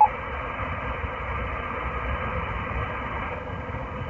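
A 220 MHz FM repeater's tail heard from a mobile transceiver's speaker after the other station unkeys: a short courtesy beep at the start, then steady radio hiss of the open carrier. A low rumble runs underneath.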